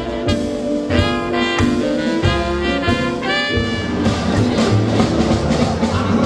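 Live swing-jazz combo playing an instrumental passage: saxophones and trumpet in short accented horn phrases over upright bass and drum kit, the band filling out into a busier ensemble sound about halfway through.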